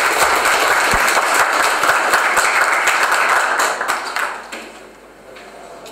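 Audience applauding, a dense patter of many hands clapping that dies away about four and a half seconds in.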